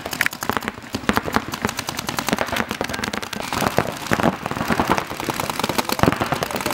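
Paintball markers firing rapid strings of shots, the pops overlapping at many a second.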